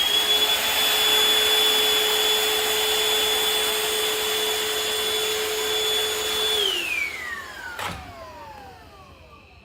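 Shark VacMop Pro cordless vacuum mop running with a steady high whine over a rushing noise. It is switched off about seven seconds in and winds down in falling pitch, with one sharp click as it slows.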